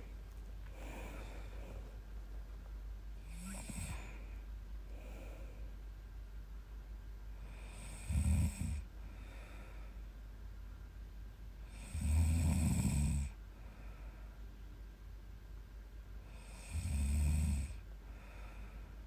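A 23-year-old woman snoring in her sleep: three loud snores about four seconds apart, near eight, twelve and seventeen seconds in, with quieter breaths between them.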